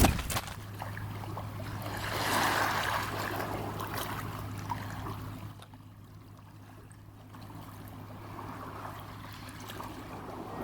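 Water lapping and washing softly, swelling about two seconds in and easing off near the middle, under a faint steady low hum.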